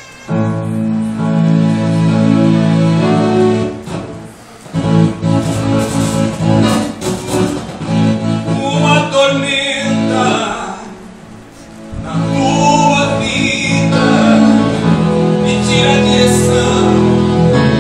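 Music: a voice singing over a steady string-instrument accompaniment.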